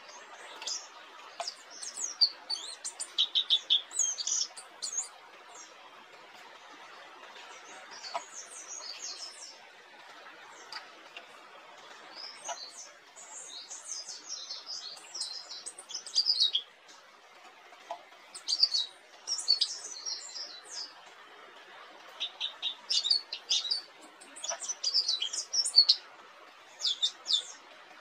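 Pleci dakun (a white-eye) singing its long rolling song: rapid, high twittering phrases a few seconds long, repeated about five times with short pauses between, over a steady background hiss.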